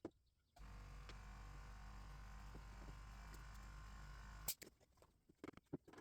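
Near silence: a faint steady room-tone hum that cuts off abruptly after about four seconds, followed by a few faint scattered clicks.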